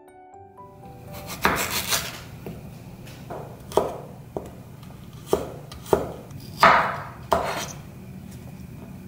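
Chef's knife chopping ginger and red bell pepper on a wooden cutting board. A quick run of cuts comes about a second and a half in, then single sharp knocks of the blade on the board every half second to a second.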